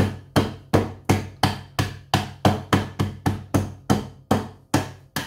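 Wooden rolling pin pounding ice wrapped in a folded kitchen towel on a stone countertop, crushing the ice: a steady run of dull knocks, about three a second, that stops just before the end.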